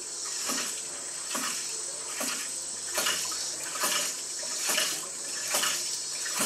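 Hydraulic ram pump running: water sprays out steadily from its waste valve, with a sharp knock a little more than once a second as the valve slams shut on each pumping cycle.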